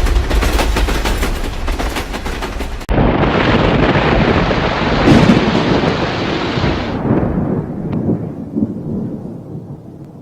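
Rapid gunfire, a fast train of shots like a machine gun, for about three seconds. It cuts abruptly to a long heavy rumble that fades away over the following seconds.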